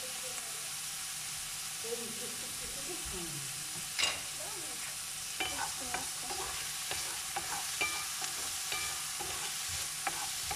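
Chopped onions sizzling in oil in a frying pan. About four seconds in, a wooden spatula knocks against the pan, then clicks and scrapes against it as it stirs the onions.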